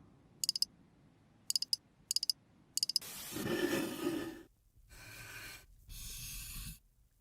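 Close-miked ASMR-style sounds: four quick clusters of sharp little clicks in the first three seconds, then soft breathy sounds.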